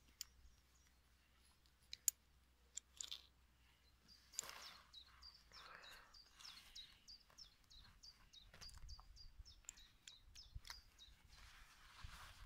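Quiet outdoor background with a small bird chirping a run of short, high notes, about two a second, from about four seconds in to near the end. Faint clicks and brief rustles come from hands wrapping hemp onto a brass pipe fitting.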